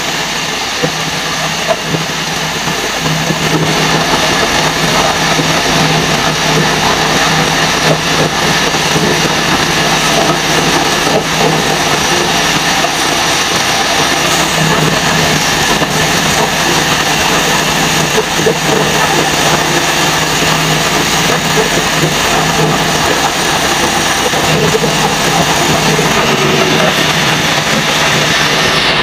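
Woodworking machine running steadily with a constant low hum and a broad hiss of wood being worked, while a charpai leg is shaped.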